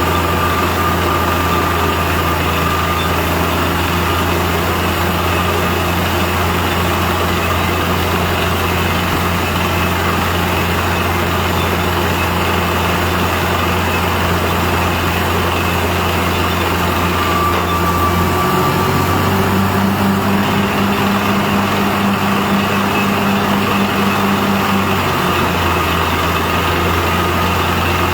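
Compressor machine running with a steady, loud, engine-like hum. About two-thirds of the way through, its low note shifts and a higher steady tone comes in for several seconds, then it settles back to the first hum.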